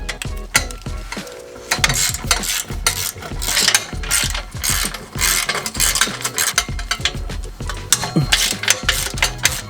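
Ratchet wrench clicking in quick runs, loosening the bolts that hold the exhaust on.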